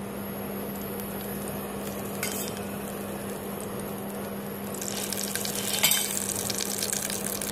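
Cooking oil poured into a hot aluminium pressure cooker pan, crackling and sizzling from about five seconds in as it hits the heated metal, over a steady low hum.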